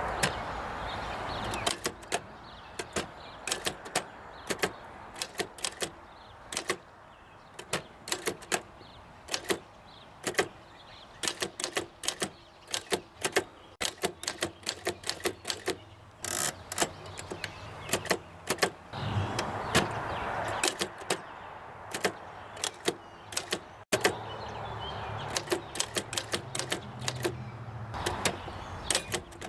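1923 Oliver No. 11 typewriter being typed on: a run of irregular, sharp keystroke clacks with short pauses between bursts of typing.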